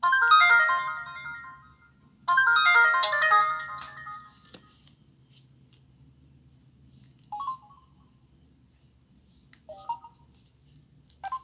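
Samsung Solstice (SGH-A887) mobile phone playing a ringtone through its speaker: a short jingle of quick bright notes, heard twice about two seconds apart. Later come two faint short tones.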